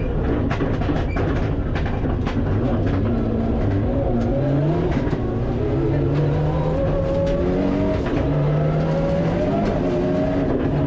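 Mitsubishi Lancer Evolution IX rally car's turbocharged four-cylinder engine, heard from inside the cockpit. Its revs drop under hard braking, with sharp cracks and clicks over the top in the first few seconds. Then the revs rise again in steps through the gear changes as the car accelerates out of the corner.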